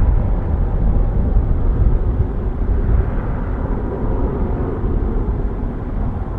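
Airbus A350-900's Rolls-Royce Trent XWB engines in reverse thrust during the landing rollout: a loud, dense rumble that slowly fades as the jet slows down the runway.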